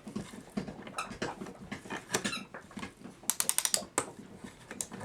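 Greased clock mainspring being pressed and wound tighter by hand: scattered metallic squeaks and clicks. A little past halfway comes a quick run of about eight sharp clicks.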